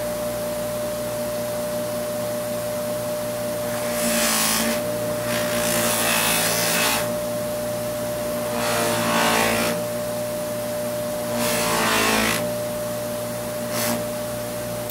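Bench buffer motor running with a steady hum and whine while a CA-finished wooden slingshot fork is pressed against its spinning loose-leaf cloth buffing wheel, giving four rushing, rubbing passes of a second or so each and a short touch near the end.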